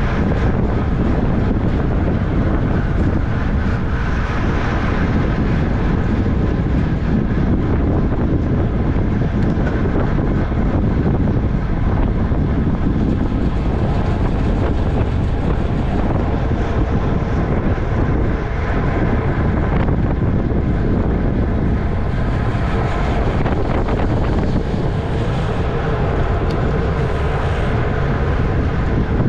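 Steady, loud wind rushing over the microphone of a camera on a road bike ridden at race speed.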